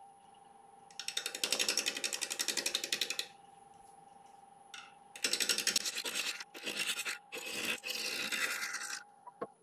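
A 5/8 bowl gouge cutting into a spinning, still out-of-round damson blank on a wood lathe: a rapid chattering clatter in four stretches of a second or two, as the tool strikes the uneven surface only part of each turn, over the steady hum of the lathe.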